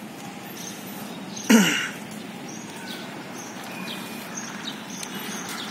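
Steady outdoor background noise, broken about one and a half seconds in by a short, loud human vocal sound close to the microphone that falls in pitch, like a brief cough or grunt.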